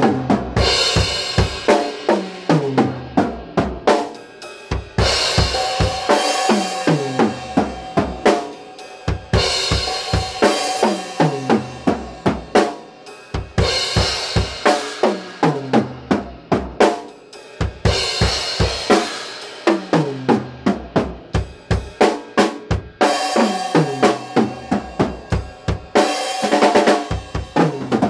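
Solo drumming on an acoustic drum kit: busy grooves broken by rapid fills that run down the toms from high to low, about every four seconds, with a cymbal crash opening each phrase.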